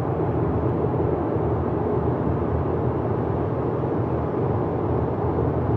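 A car driving at highway speed, heard from inside the cabin: steady road and engine noise.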